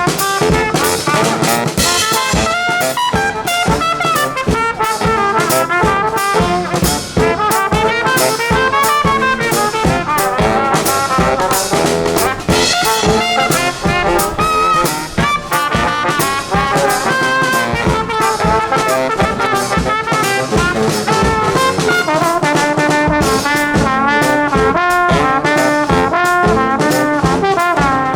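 Live brass band playing an upbeat tune, with horns carrying the melody over a steady drum beat.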